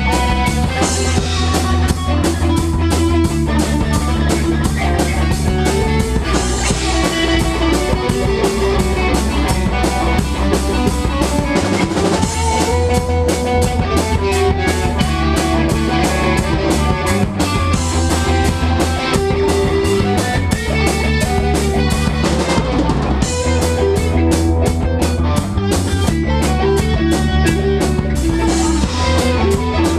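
A band playing an instrumental rock piece live, with a drum kit keeping a steady beat under electric guitar, keyboards and sustained low bass notes.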